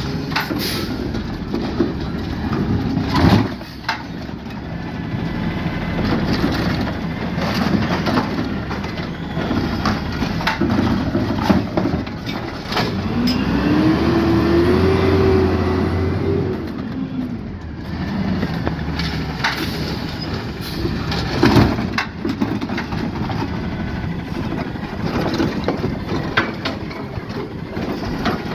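Peterbilt 520 garbage truck with a Rapid Rail automated side-loader working a recycling pickup: the engine runs steadily, its note rising and falling once around the middle as the hydraulic arm cycles, with a few sharp knocks from the cart and body, over wind noise.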